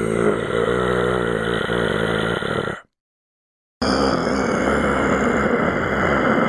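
A person voicing zombie growl-moans: one long guttural growl that stops about three seconds in, then after a second of silence a second long growl that carries on.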